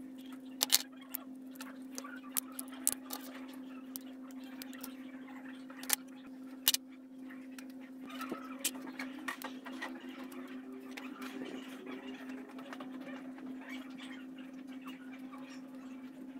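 Sharp clicks and taps of a small phone's plastic housing and parts being handled and pried apart with a flat metal pry tool, several in the first seven seconds, then softer scraping and handling. A steady low hum sits underneath.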